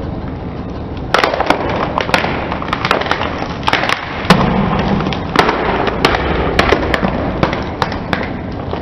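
A car tyre rolling over a box of strawberry chocolate balls and crushing it: a run of sharp cracks and crunches, about two a second, starting about a second in, over a low steady rumble.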